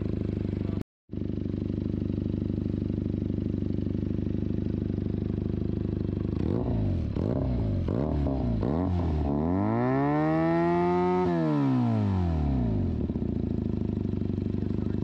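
Benelli TNT 300's liquid-cooled parallel-twin engine with an aftermarket SC Project exhaust idling, then given a few quick throttle blips and one longer rev that climbs and falls back to idle.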